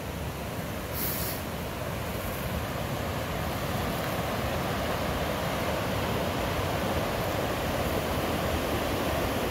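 Whitewater river rapids rushing steadily, growing gradually louder.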